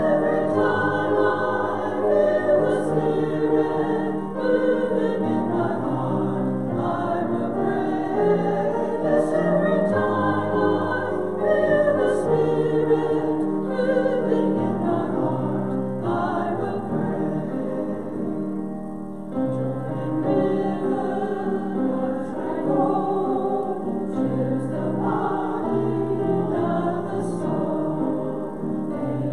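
A choir singing sacred music, with long held notes that move from chord to chord.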